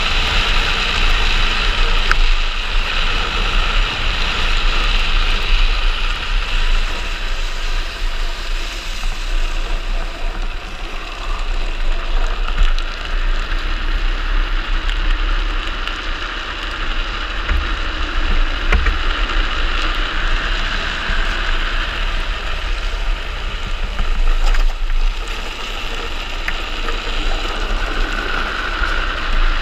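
Wind rushing over a helmet-mounted camera at speed, with a steady hiss from a speed trike's wheels rolling on asphalt; the level swells and dips a little as the ride goes on.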